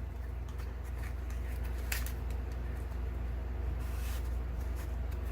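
Faint handling of a small cardboard product box as it is opened, with a sharp click about two seconds in and a brief rustle near four seconds, over a steady low electrical hum.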